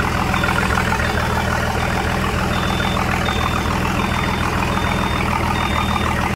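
Volvo Penta 4.3 carbureted V6 marine engine idling steadily on a bench test run before installation, with a faint high chirp about every three-quarters of a second.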